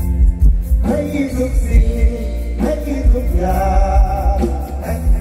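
Mor lam band music: a singer's voice over a heavy bass and drum beat.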